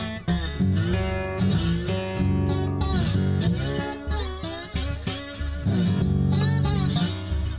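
Electric blues music in an instrumental break: a guitar plays single notes with bent, sliding pitches over a steady bass line.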